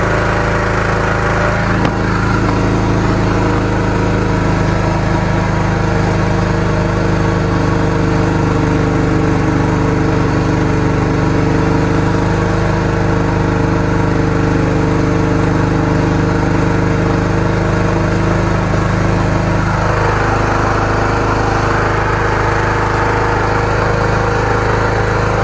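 The 13-horsepower engine of a high-pressure sewer jetter running steadily, driving the pump. Its tone changes about twenty seconds in.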